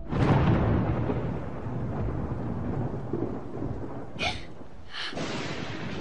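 Thunderstorm: thunder breaks just at the start and rolls on as a long low rumble over steady rain, loudest in the first second. Two short sharp sounds come a little over four and five seconds in.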